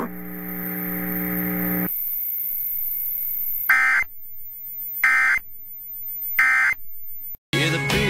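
Emergency Alert System end-of-message burst: three short screechy bursts of digital data tones, about 1.3 seconds apart, the signal that closes an EAS alert. Before them comes a steady low buzzing tone for about two seconds, and music starts just before the end.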